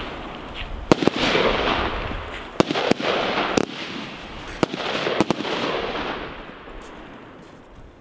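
Golden Glow SP100 firework firing: about seven sharp bangs in the first five seconds, with steady hissing between them, all dying away over the last couple of seconds as the display ends.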